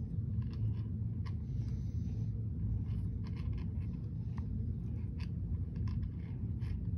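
Faint, irregular clicks and scrapes of a plastic Play-Doh toy's hand crank and gears being turned, over a steady low rumble.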